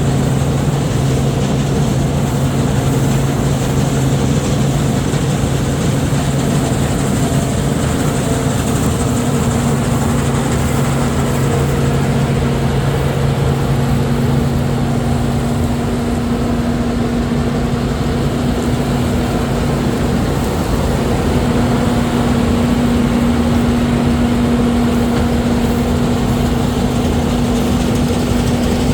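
Heavy diesel farm machinery running steadily, loud and continuous. A low engine hum fades out about halfway through while a higher steady tone carries on.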